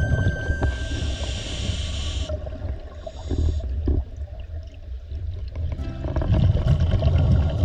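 Scuba diver breathing through a Poseidon Cyklon 5000 regulator, heard underwater. A hiss of inhalation runs for about two seconds near the start, with a shorter one about three seconds in, and rumbling exhaled bubbles are loudest near the end.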